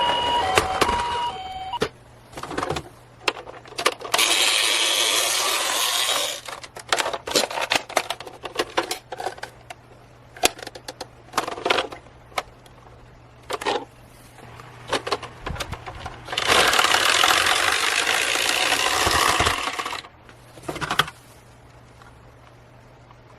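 Toy cars rattling down a slide in two long runs, with many sharp clicks and clacks of the small cars knocking against each other and being handled between the runs.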